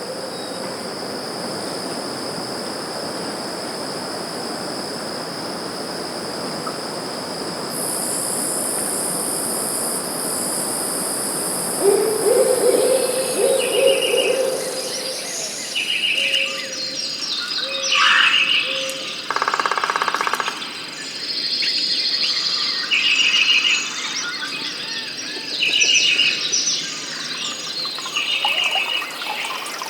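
Forest ambience: a steady rushing hiss with a high insect drone, then a low hooting call about twelve seconds in. After that a bird repeats a short high call every couple of seconds among other bird notes.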